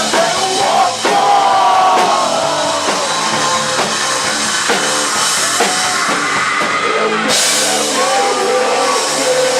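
Live rock band playing: drum kit and guitar with held notes, with a brighter, noisier wash coming in about seven seconds in.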